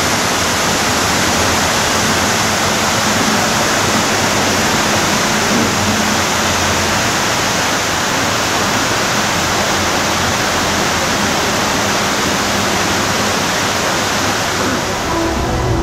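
Steady rush of water pouring down the Mirage volcano's waterfalls into its lake.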